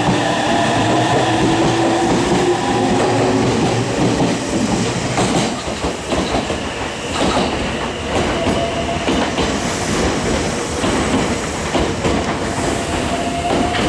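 Meitetsu 300 series electric train pulling out of the station, its traction motors whining upward in pitch as it gathers speed and its wheels clattering over the rail joints as the cars roll past and away.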